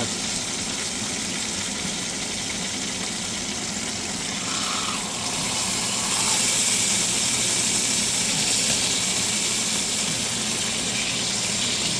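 Dry-aged steak sizzling in hot olive oil in a pan, its fat held against the pan to render: a steady hiss that grows louder about six seconds in.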